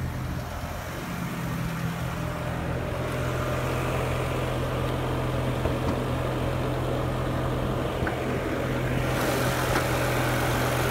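The 5.0-litre V10 of a 2006 BMW M5 idling with a steady low hum, a little louder and brighter near the end as the open engine bay comes close.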